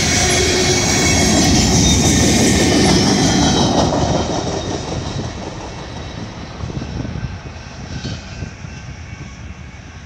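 Freight train cars rolling past on the rails, wheels running with a thin high squeal. After about four seconds the sound fades steadily as the train moves away.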